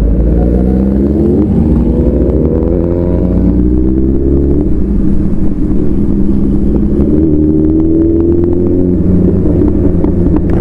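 Superbike engine running under load while riding off. Its pitch climbs over the first few seconds, drops about three and a half seconds in, then climbs slowly again.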